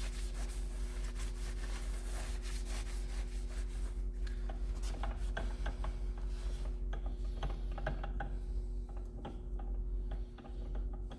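Rapid rubbing and scraping strokes as a metal gasket mating surface is cleaned by hand, thinning out after about four seconds, over a steady low hum.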